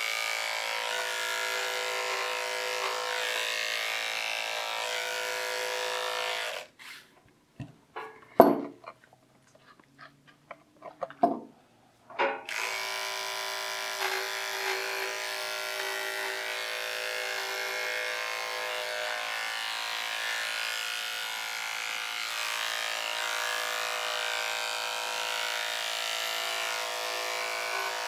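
Corded electric dog clippers running steadily as they shave a small dog's hind leg. They stop about six and a half seconds in, leaving a few seconds of clicks, knocks and slicker-brush strokes with one sharp knock, and start up again about twelve seconds in.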